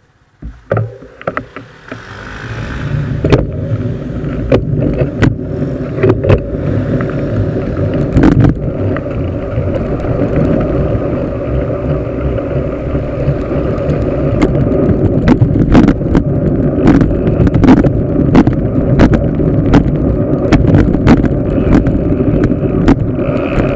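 Wind buffeting and road rumble picked up by a camera on a moving bicycle's handlebars. It builds up over the first few seconds as the bike gets going, with frequent sharp clicks and knocks as the bike and mount rattle over the road.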